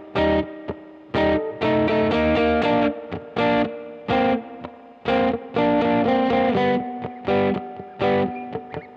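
Electric guitar rhythm part, recorded clean through a DI box and reamped through a Fender tube amp with the amp's own spring reverb, playing short strummed chord stabs with brief gaps between them.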